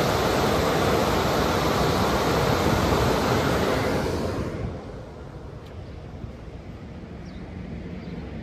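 MacNeil Tech 21 car wash dryers blowing, a loud steady rush of air that falls away sharply about four and a half seconds in, leaving a much quieter dull rumble.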